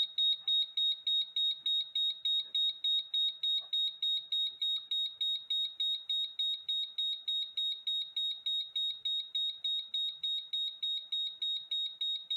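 Gas leak detector alarm beeping: a rapid, even train of high-pitched beeps, about three to four a second. The detector has been set off by inspection test gas during its operation test.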